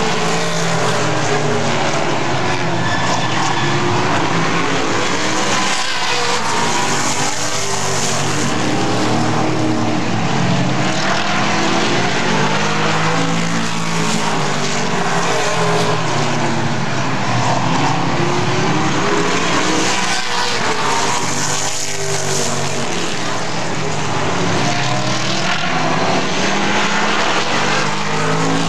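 A field of super late model stock cars racing around a short oval, their V8 engines running hard, with the pitch sweeping up and down as the cars accelerate down the straights and lift for the turns, about every seven or eight seconds.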